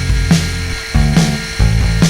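Background music with a steady beat and a changing bass line.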